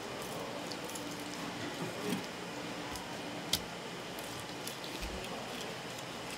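Knife slicing through a mackerel on a plastic cutting board, filleting along the backbone: soft, wet cutting sounds with small clicks and one sharper tap about three and a half seconds in, over a steady background hiss.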